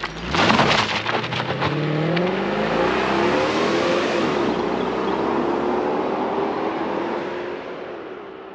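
The supercharged V8 of a 2003 Jaguar S-Type R accelerating hard away from a standstill, its note climbing through the gears, loudest in the first two seconds and fading as the car drives off.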